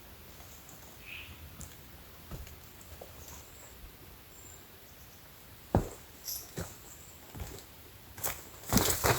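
Dry twigs and leaves crunching and snapping: a few separate sharp cracks from about six seconds in, growing into a dense crackle near the end.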